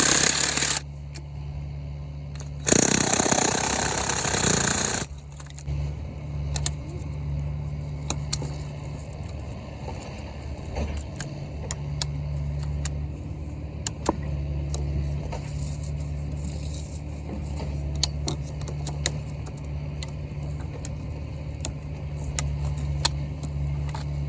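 Cat 305 mini excavator's diesel engine idling with a steady low hum. About three seconds in there are two loud rushing bursts of noise, and after that small scattered clicks and knocks.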